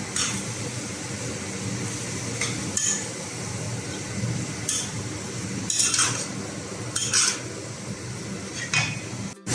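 Stirring in a frying pan of chicken, scrambled egg and kampung fried rice paste: a steady sizzle with a scrape or clink of the utensil against the pan every second or so. The paste is being cooked down until its liquid is nearly dry.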